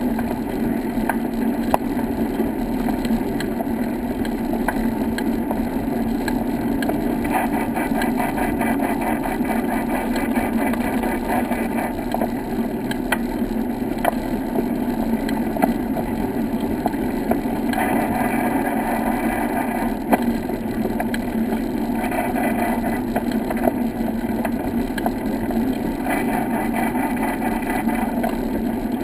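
A steady rolling rumble from a slow ride along a brick-paved path, with scattered clicks and rattles.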